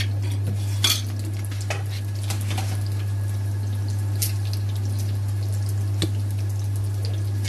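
A metal teaspoon clinking lightly against a pan a few times, the loudest click about a second in, over a steady low hum.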